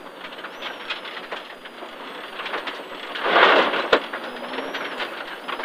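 Rally car driven at speed on a loose gravel stage, heard from inside the cabin: steady road noise with stones pinging and rattling against the underbody. A louder rush of gravel spray comes about three seconds in, followed by a single sharp knock.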